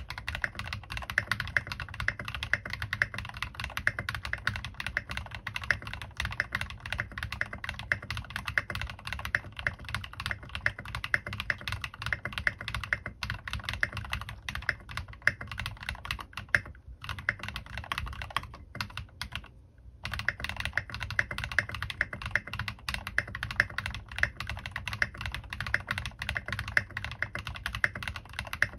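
Fast typing on a Bahm Studio Droplet mechanical keyboard with lubed Cherry MX Black linear switches on Tecsee Vintage stems and Maxkey Ka keycaps: a dense, steady run of keystrokes. It stops for two brief pauses a little past the middle.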